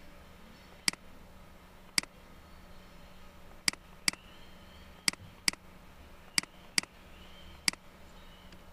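Computer mouse button clicking: about nine sharp single clicks, three of them in quick pairs, over a low steady hum.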